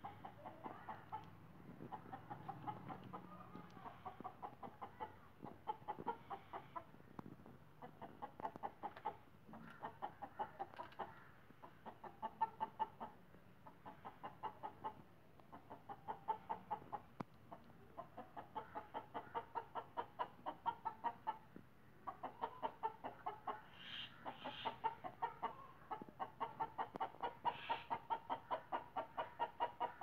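Chickens clucking in runs of short, quickly repeated notes, several a second, with brief pauses between runs.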